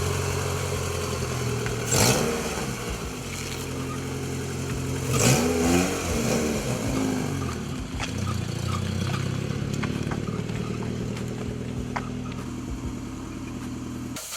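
Car engine idling, with two brief revs about two and five seconds in; it cuts off abruptly near the end.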